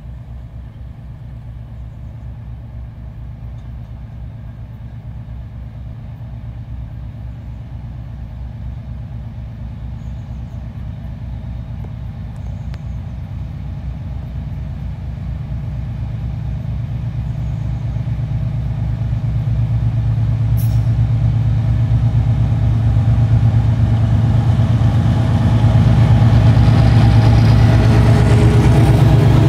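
2TE10M twin-section diesel freight locomotive approaching, its 10D100 two-stroke diesel engines running with a deep steady drone that grows steadily louder. Near the end, as the locomotive draws alongside, wheel-and-rail noise joins the engine sound.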